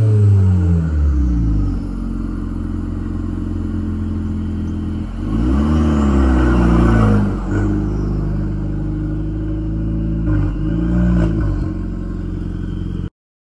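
Straight-piped Volkswagen GTI engine and exhaust on a drive-by. The note falls away as the engine comes off the throttle at the start, holds steady, then rises and falls in a rev about five seconds in and again near ten seconds. The exhaust is loud and raspy without a muffler.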